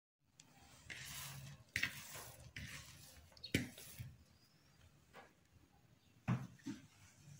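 Hands pressing and working risen yeast dough in a plastic bowl, with soft squishing and rustling and a few sharp knocks.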